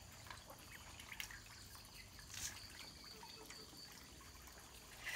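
Faint, scattered plops and small splashes of catfish feeding at the surface of a cement tank, snapping up feed pellets, with one clearer splash about two and a half seconds in.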